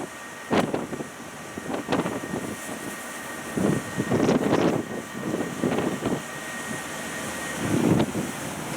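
Tourist road train moving, its engine and road noise under irregular gusts of wind buffeting the microphone, with a faint steady high whine through the middle.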